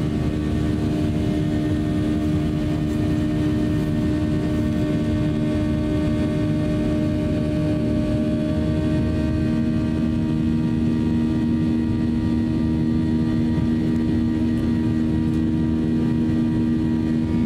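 Cabin noise of a Boeing 737-800 climbing out after takeoff: the CFM56 jet engines and airflow make a steady drone with a hum of several even tones. One higher tone fades out about halfway through.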